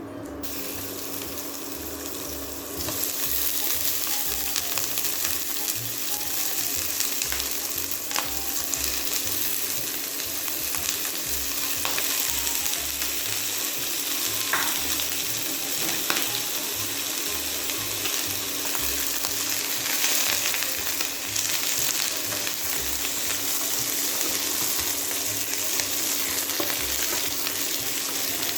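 Shell-on prawns frying in olive oil in a pan, a steady sizzle with scattered crackles that grows louder about three seconds in. A steady low hum runs underneath.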